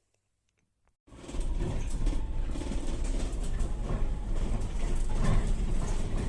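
Steady low rumble and rattle of a moving bus, starting abruptly about a second in after near silence.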